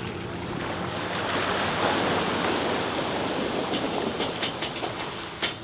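Water rushing and splashing off a boat trailer as a pickup pulls it up the ramp out of the lake, building to its loudest about two seconds in and then easing. A low engine hum sits under it at first, and a few sharp ticks and knocks come near the end.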